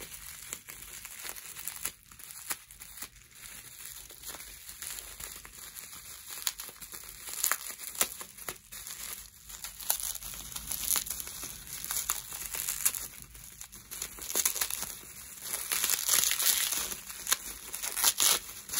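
Clear plastic wrapping crinkling as a wrapped candle is handled and unwrapped, in irregular bursts of crackling that grow busier near the end.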